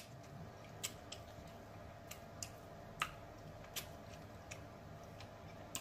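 Faint, irregular clicks and small cracks as snow crab claw shell is handled and picked apart to get at the meat.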